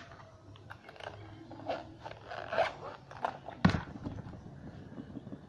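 Cloud slime made from diaper gel being squeezed and pulled in the hands, giving a run of small crackling and sticky snapping sounds, with one louder knock a little past halfway.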